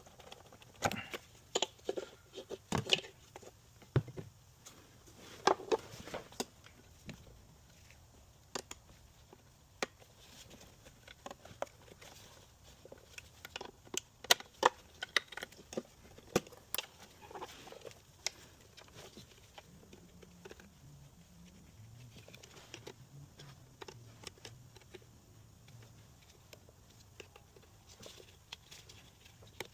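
Intermittent sharp clicks, knocks and light clatter of hand tools and engine parts being handled, in clusters with quieter stretches between.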